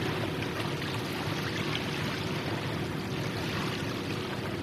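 Steady rush of flowing water, with a faint steady hum beneath it.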